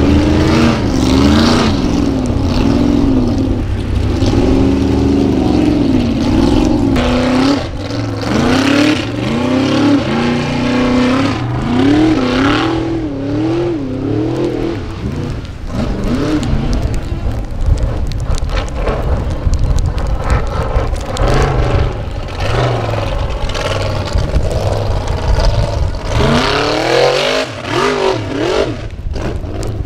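Formula Offroad unlimited-class buggy's engine revving hard while climbing, its pitch rising and falling again and again as the throttle is worked. The revving eases for a stretch in the middle and comes back strongly near the end.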